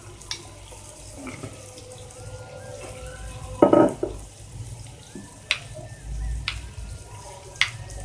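A metal spoon clinking against a small glass bowl a few times, mostly in the second half, as it is set down in and stirred through a yogurt dressing. A short voice sound is heard about midway.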